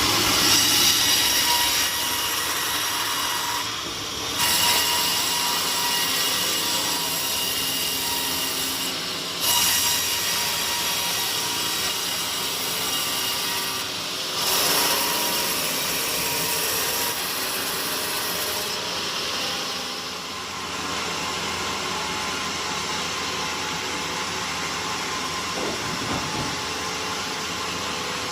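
A sawmill saw cutting through a teak log, running steadily with brief dips about every five seconds. After about 19 s the sharpest hiss of the cut fades while the machine keeps running.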